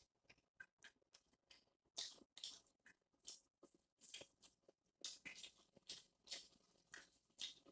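Faint close-up eating sounds: irregular short wet smacks and crunches of chewing and biting into corn on the cob. They come in scattered bunches, thickening in the second half.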